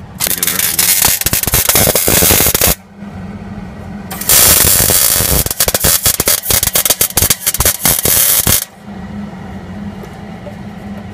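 Arc welding on a car's exhaust under the car, the arc crackling in two runs, the first about two and a half seconds long and the second about four, with a steady low hum in the pause between them.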